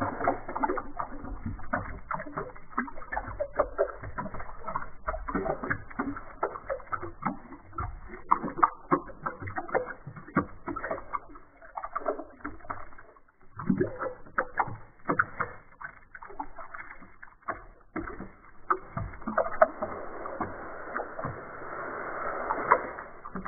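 Thin stream of water pouring and splashing into a basin, played back slowed down, so the splashes come out as low, irregular plops and gurgles. It grows denser near the end.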